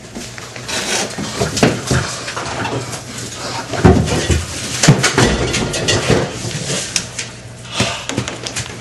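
Irregular knocking and clattering of things being handled and bumped, loudest about four and five seconds in, over a steady low hum.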